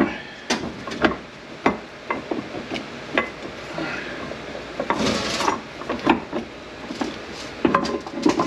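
Steel parts of an SM465 four-speed manual transmission handled by hand during teardown: irregular metallic clinks and knocks, with a longer scraping rub about five seconds in, as the input shaft is worked free.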